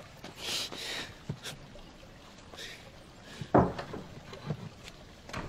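A hand striking a heavy wooden door: one loud thump about three and a half seconds in, then a few softer ones. A soft rustle comes about half a second in.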